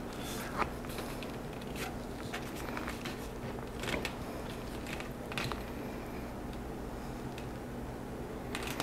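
A few faint, scattered clicks and light knocks over a steady low hum.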